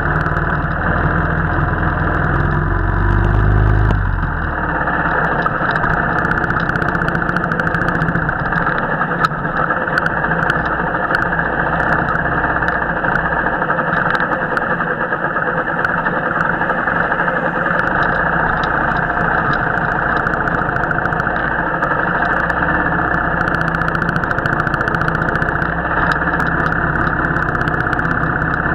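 Royal Enfield motorcycle engine running on the move, mixed with steady wind rush on the action camera's microphone. A deeper low rumble drops away about four seconds in.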